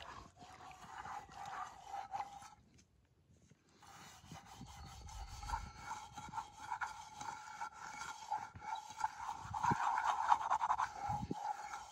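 A handful of grass scrubbed around a wet non-stick frying pan: quick rasping, swishing strokes against the pan and its water, with a pause of about a second a few seconds in.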